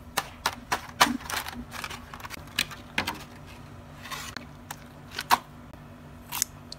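Clear plastic blister tray crackling and clicking as rubbery squishy toy figures are pressed out of it, a scattering of sharp clicks. Near the end comes a short snip of scissors cutting into a toy's soft arm.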